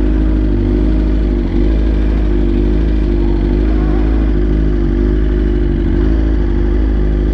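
Superbike engine idling steadily, with a deep low rumble and no revving.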